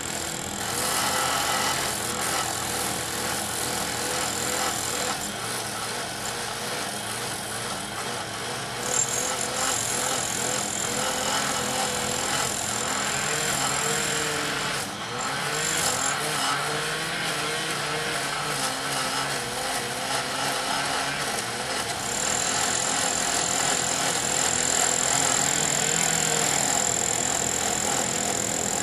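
Rail track repair machinery running steadily amid street traffic, with a thin high whine that drops out around five seconds in, returns for a few seconds, and comes back strongly about two-thirds of the way through.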